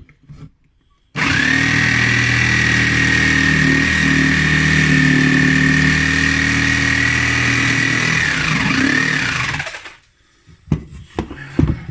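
Electric power tool motor starting abruptly about a second in and running steadily at full speed with a high whine, then winding down and stopping near the end.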